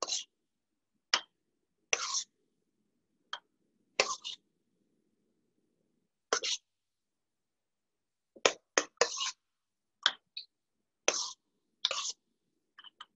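A metal spoon scraping a mixing bowl and clinking against small glass jars while a soft filling is spooned in: about a dozen short, separate scrapes and clinks, several close together about two-thirds of the way through.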